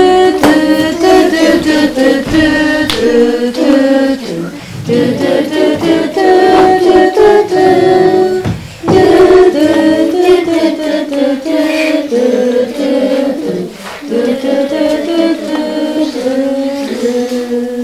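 Several voices singing a song together, held notes stepping up and down in a melody, with short breaks between phrases.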